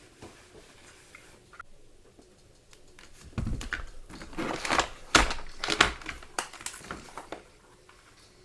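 Handling noises from the repaired headphone cable and plug: a run of short clicks and rustles through the middle few seconds, between quiet stretches.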